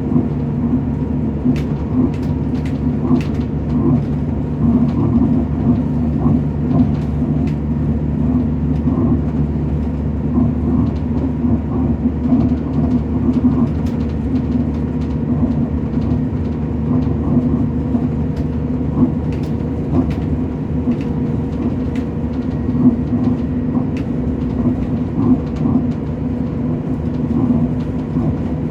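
Diesel passenger train running along the line, heard from inside the carriage: a steady rumble with a constant drone from the engine and scattered light clicks from the wheels and track.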